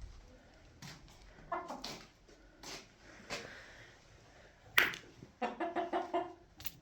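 Puppy whimpering: a short whine, then a quick run of six or seven high yelping cries near the end. A sharp click a little before the run is the loudest single sound.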